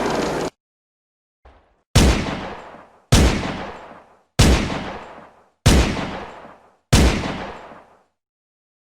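Five single gunshots, evenly spaced about a second and a quarter apart, each sharp crack ringing out and dying away over about a second. The tail of an earlier loud sound cuts off abruptly about half a second in.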